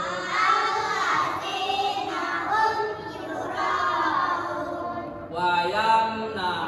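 A group of children chanting together in unison, a melodic recitation with long held and gliding notes.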